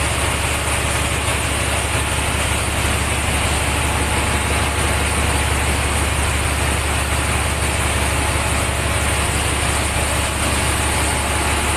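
Steady, loud engine-room din with a deep, even hum: a ship's diesel generator running.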